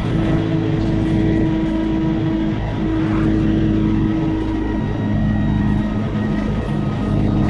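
A vehicle running steadily, a continuous low rumble with a few held humming tones over it.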